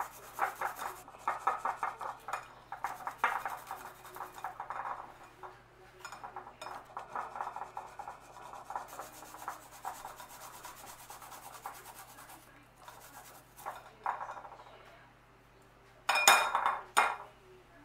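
Garlic being grated on a fine rasp grater resting across a glass bowl: quick, repeated rasping strokes in runs with short pauses, fading toward the end. A few sharp knocks near the end.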